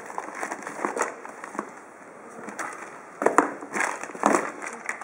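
Plastic packaging crinkling and cardboard rustling as a coiled cable is handled and pulled out of a shipping box, in irregular bursts that get louder about three seconds in.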